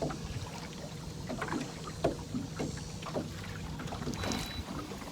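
Water lapping and slapping against the hull of a fishing boat, with scattered small splashes over a steady low hum.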